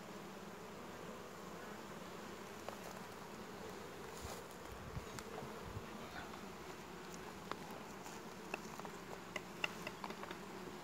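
Honeybees buzzing in a steady low hum over an opened hive full of frames. A few light clicks come in the second half.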